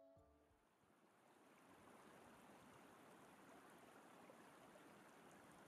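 The last notes of the closing music die away, then a faint, steady sound of a flowing stream.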